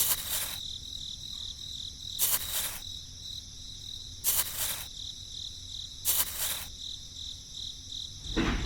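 Steady high-pitched insect chirring, like crickets, with a fast pulse. Four short hissing bursts come about two seconds apart.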